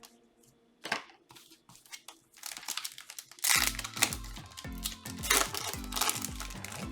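Crinkling and tearing of a foil trading-card booster pack wrapper in short bursts. About halfway through, background music with a steady low beat comes in and carries on.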